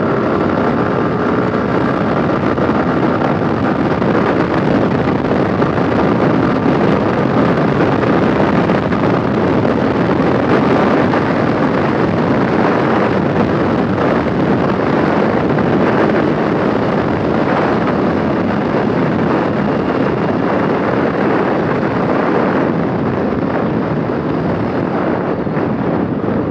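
Heavy wind rushing over the microphone of a Yamaha R15 V4 ridden at speed, with the bike's engine beneath it. The rush eases a little near the end as the bike slows.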